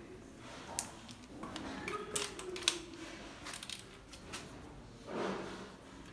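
Ratchet wrench clicking on an engine fitting, with scattered metallic tool clicks and a quick run of ratchet clicks about three and a half seconds in, then a brief scrape a little after five seconds.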